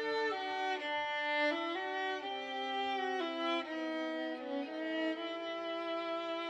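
Background music: a slow violin melody over sustained lower string notes, changing note about every half second to a second.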